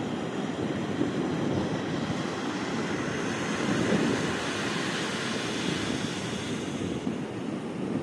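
Pacific surf breaking and washing up the beach, a steady rushing that swells about halfway through.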